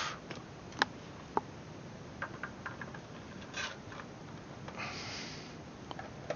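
Hands handling 3D-printed plastic taillight parts: a few light clicks and taps as a separator is fitted into the housing, then a short scraping rustle about five seconds in as the lens is set on.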